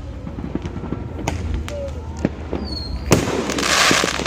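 Fireworks going off: scattered bangs and pops with a few short whistles. A loud bang comes about three seconds in, followed by about a second of crackling.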